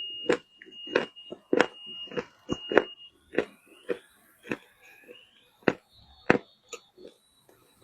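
Wet loess (yellow earth clay) being bitten and chewed close to the microphone: irregular sharp crunches, roughly one or two a second. A thin high-pitched tone sounds faintly under the first three seconds.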